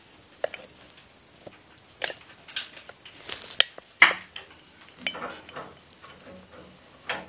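Scattered clicks, taps and clinks from a brass ball valve and pipe fittings being handled and offered up to the threaded pipe.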